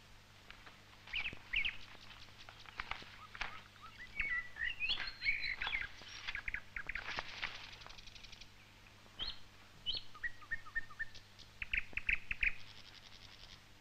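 Birdsong: a mix of chirps, short whistled phrases and quick trills of rapidly repeated notes, coming and going throughout, over a faint steady low hum.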